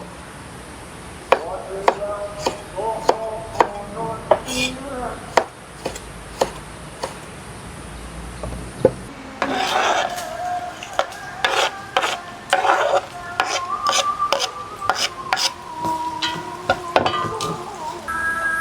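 Kitchen utensils knocking and clinking against pots and dishes, with stirring and scraping in between: many short, sharp strikes.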